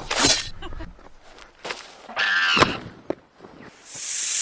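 A short noisy burst at the start, then a brief wavering high-pitched cry about two seconds in, and near the end a drawn-out high hiss like a snake's.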